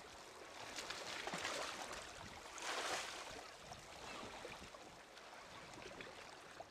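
Kayak paddle blades splashing and swishing through the sea in a run of strokes, loudest about three seconds in.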